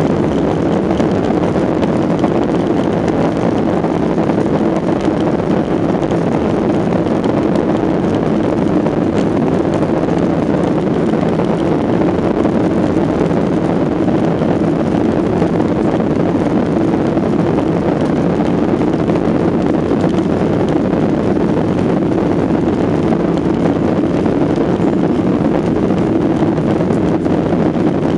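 Steady cabin noise of a Boeing 737-800 heard from inside the passenger cabin: a loud, unbroken rumble and rush from its CFM56 turbofan engines and the airflow, holding an even level without rising or falling.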